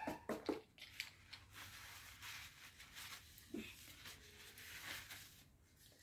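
An African grey parrot ruffling and shaking its damp feathers: a dry, patchy rustling, with a few short knocks in the first half-second.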